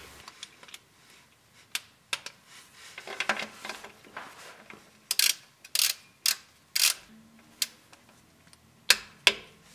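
Sharp metallic clicks from a torque wrench with a 3/8-inch extension. The wrench is ratcheting the Dana 44 differential's drain plug tight to 25 ft-lb. The clicks are scattered at first, then come about every half second from about five seconds in.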